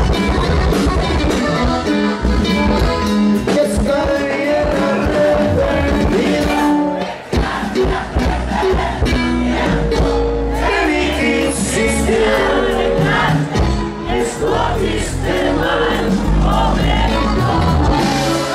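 A live norteño band playing a song with a sung lead vocal over bajo sexto and bass. The music thins briefly about seven seconds in, then the singing comes back strongly.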